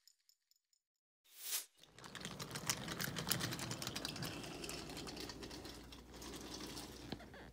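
A brief burst of noise about a second and a half in, then dense, rapid clicking and light rattling of wooden toy train cars moving by hand on wooden track, slowly fading toward the end.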